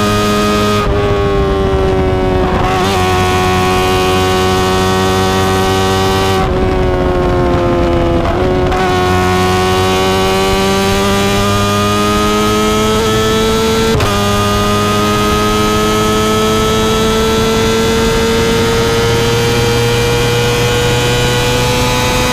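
Kawasaki ZX25R's inline-four engine running through an Akrapovic exhaust while riding. Its steady, high note drops briefly about a second in, again around six to nine seconds in and near fourteen seconds, and otherwise climbs slowly.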